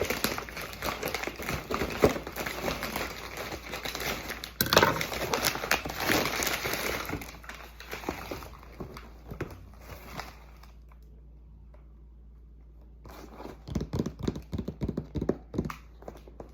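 Packaging of a Mini Brands toy supermarket playset crinkling and rustling as it is unboxed by hand. The crinkling dies away about halfway through, and a run of sharp clicks and taps comes near the end.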